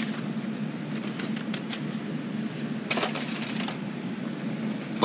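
Paper cut-outs and crumpled plastic rustling and clicking as they are handled and shifted, with a louder rustle about three seconds in, over a steady low hum.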